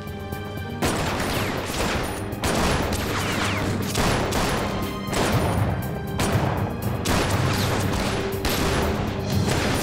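Sustained gunfire, many shots in quick succession, over dramatic score music. The shooting starts about a second in.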